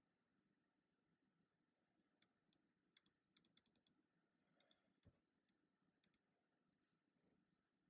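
Faint, scattered keystrokes on a computer keyboard: a few irregular clicks, bunched together for about a second near the middle, with long gaps between.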